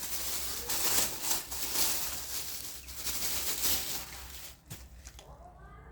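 Rustling and crinkling of packaging as the boxed electric screwdriver is handled and unwrapped, fading out about four seconds in.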